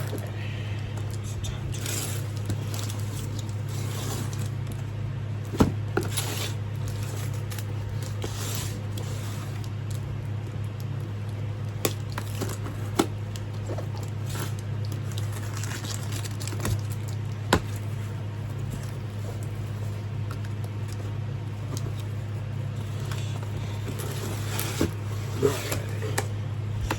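Cardboard box and packaging being opened and handled: scattered scrapes, rustles and a few sharp knocks, over a steady low hum.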